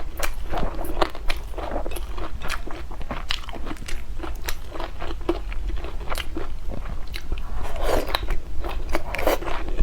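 Close-miked eating: a person biting and chewing crunchy food, with many sharp crunches and crackles.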